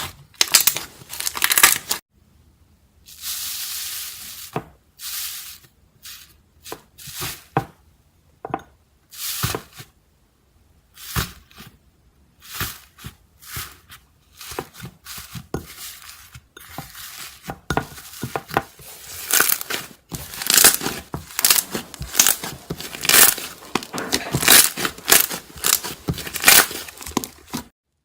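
Iceberg slime being pressed, poked and pulled by hand: its hardened, dried top crust crackles and crunches in irregular bursts with short gaps between them, growing denser and louder in the second half.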